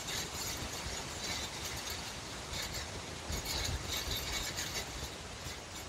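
Wind blowing through trees: a steady low rumble with leaves rustling in short gusts every second or so.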